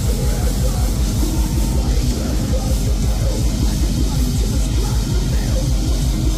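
Progressive metal band playing live at full volume: distorted guitars, bass and drums, dense and heavy in the low end, captured on a phone's microphone.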